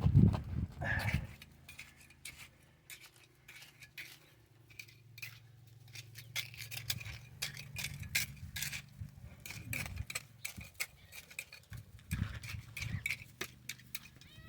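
A trowel working wet mortar back up against the edge of a stone: a run of short scrapes and clicks. A louder low rumble fills about the first second.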